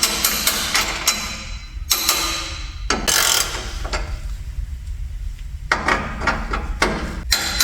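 Hand tools working on the exhaust clamps and hangers: an irregular run of sharp metal clicks and knocks with short bursts of scraping.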